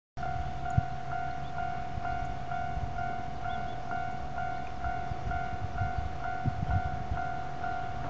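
Railway level-crossing warning bell ringing steadily at about two strikes a second, over a low irregular rumble with a few thumps.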